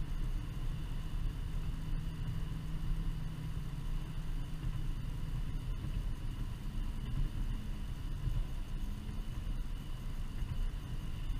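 Steady engine and tyre noise heard inside a small car's cabin while it drives along a road: a constant low rumble with no gear changes or distinct events.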